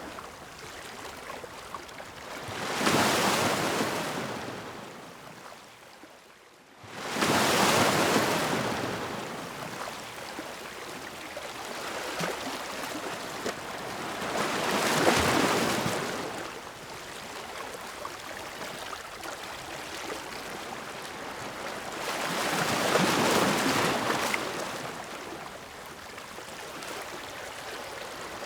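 Ocean waves breaking on a shore in slow surges, four swells of wash each rising and fading over a few seconds; a brief lull about six seconds in ends in a sudden loud surge.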